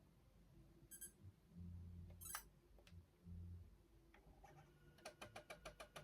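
Sony Mavica's built-in 3.5-inch floppy drive faintly accessing a disk: short low motor hums, then, near the end, a rapid even run of ticks about seven a second as the drive reads and writes.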